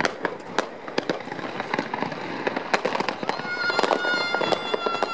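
Fireworks display: a rapid, irregular series of sharp bangs and crackles from bursting aerial shells. About three seconds in, a steady high whistling tone joins and carries on under the bangs.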